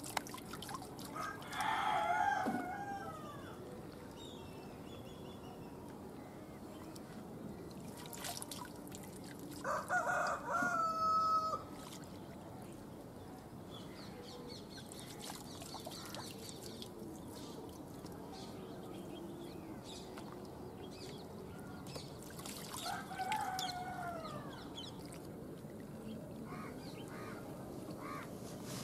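Roosters crowing three times, each crow lasting a second or two: about two seconds in, again around ten seconds, and once more past twenty seconds. Between the crows, water trickles and drips softly as azolla fern is scooped out of its pond with a plastic basket.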